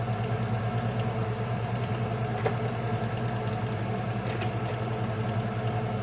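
A steady, even machine hum with a slight pulse, broken by two light clicks, one about midway and one later on.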